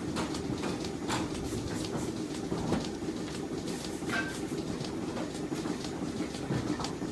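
Milking parlour machinery running: a steady mechanical hum with scattered irregular clicks and clanks, and a brief high tone about four seconds in.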